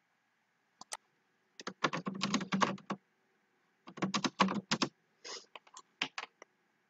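Typing on a computer keyboard: two quick runs of keystrokes, each about a second long, then a few scattered key taps near the end.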